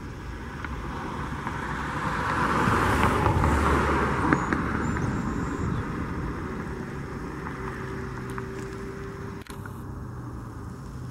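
A road vehicle drives past: its noise swells to a peak about three to four seconds in, then fades away over the next few seconds, over a steady background hum.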